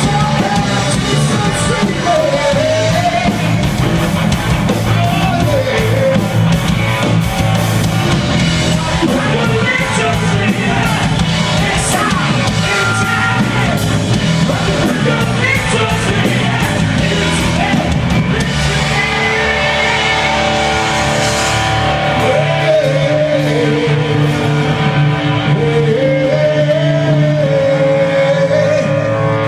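Live rock band playing: electric guitars, bass guitar and a full drum kit, with a man singing. About two-thirds of the way through the drums thin out, leaving held notes that slide in pitch.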